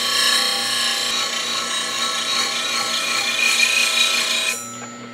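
Steel spindle gouge ground against a CBN wheel on a bench grinder: a steady, high-pitched grinding. It stops sharply about four and a half seconds in as the tool comes off the wheel, leaving the grinder motor's low hum.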